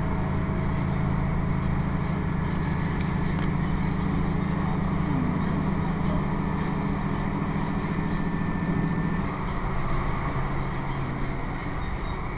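Diesel passenger train running at speed, heard from inside the carriage: a steady low engine drone over the rumble of the wheels on the track. The engine note changes about nine seconds in.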